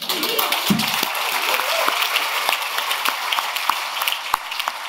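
Audience applauding, with a few shouts of cheering in the first second or so.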